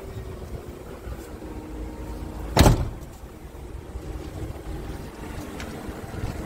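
Scania R truck's cab door shut with a single heavy thud about two and a half seconds in, over a low rumble of wind on the microphone.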